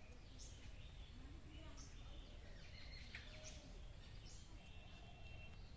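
Faint birds chirping outdoors: short high calls about once a second, with one thin whistled note near the end, over a steady low background rumble.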